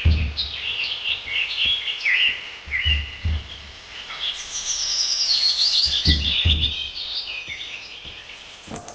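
Birds chirping and calling, many short overlapping chirps throughout, with a few low dull thumps near the start, about three seconds in and about six seconds in.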